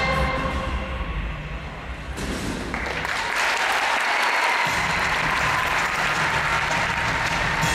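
Audience applause in a large arena, swelling up about two to three seconds in as the music fades out, then continuing. Music with a low beat comes back in under the clapping about halfway through.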